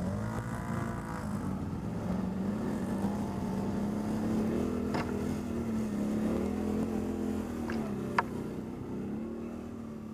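ATV engine running under throttle, its pitch rising and falling several times as the rider opens and closes the throttle. A few sharp knocks are heard, the loudest about eight seconds in.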